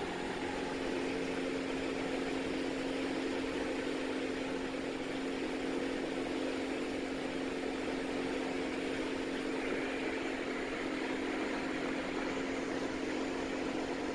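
Steady cabin drone of a Diamond DA40's engine and propeller, heard from inside the cockpit, with power applied for a go-around climb.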